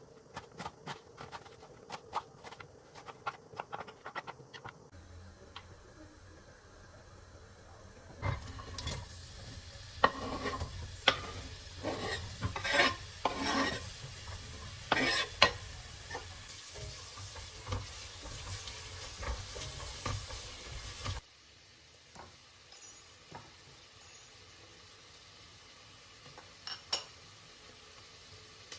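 Food sizzling in a pot while a spoon stirs and knocks against it, which stops abruptly about two-thirds of the way through. Before it there is a run of quick sharp taps; after it, only faint occasional taps.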